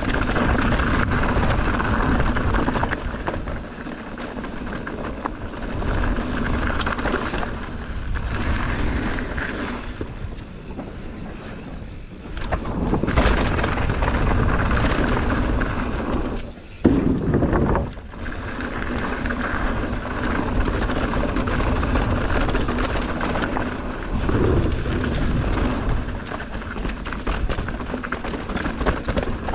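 Mountain bike ridden down a downhill trail: tyres rolling and the bike rattling over rough ground, rising and falling with the terrain. About sixteen seconds in the noise drops out briefly, then comes back with a loud jolt.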